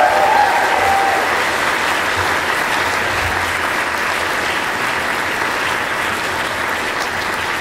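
Audience applauding steadily, the clapping easing off slightly toward the end.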